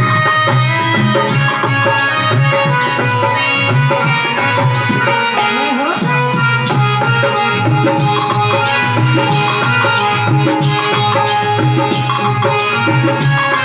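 Instrumental break in a Hindi devotional song: a sustained melody over a steady drum rhythm, with no singing.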